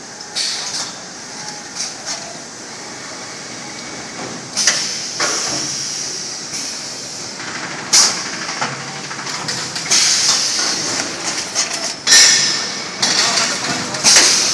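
CNC amorphous core cutting machine running its automatic cutting cycle: a sharp metallic clack every three to four seconds, each followed by a fading hiss, over a steady machine hum.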